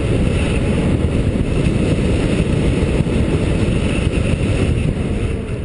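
Wind rush and road noise buffeting a GoPro microphone on a moving electric bicycle, a loud steady rumble that eases off slightly near the end.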